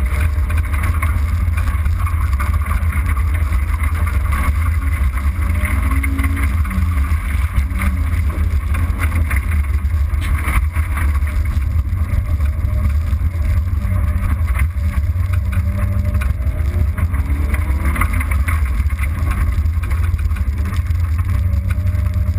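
A car driving across a rough, rutted field: a steady low rumble of engine and tyres, with the engine note rising and falling a little at times.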